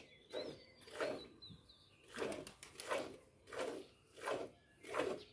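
A cow being milked by hand into a steel bucket: the jets of milk hiss into the milk already in the pail in a steady rhythm, about one and a half squirts a second. Faint bird chirps sound early on.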